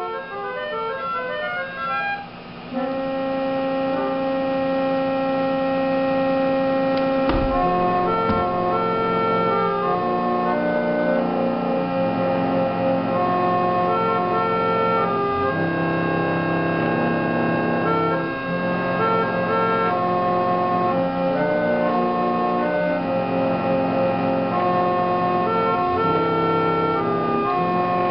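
An 1860s melodeon, a foot-pumped reed organ, playing a tune: a quick run of short notes opens, then held chords under a moving melody, its reeds sounding as air is passed over them. A brief soft knock about seven seconds in.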